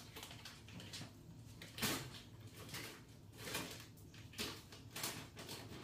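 Faint kitchen handling noises at the counter: a few brief rustles and knocks, spaced about a second apart.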